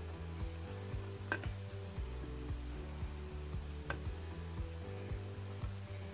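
A faint, steady low hum with two light ticks, about a second in and again near four seconds, from mini pancakes and a plate being handled.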